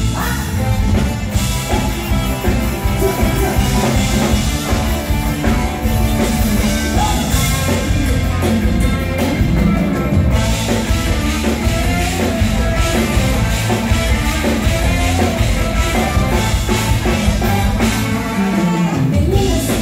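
Live band playing an upbeat Thai luk thung song over the PA, with drum kit and bass, and a female singer's voice at times.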